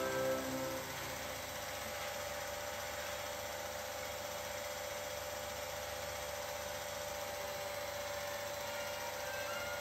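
Steady whir of an 8mm film projector's motor running, with a few held tones over a hiss. Background music fades out in the first second.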